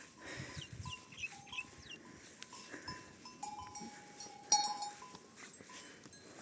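Cattle on a hillside pasture: faint animal calls with the ringing of their bells, several steady tones coming and going, and one sharp metallic clank about four and a half seconds in.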